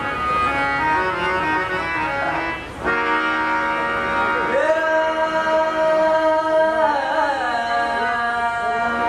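Music with a singing voice over instruments. A singer holds one long note in the middle, sliding into and out of it, after a short drop in the music about three seconds in.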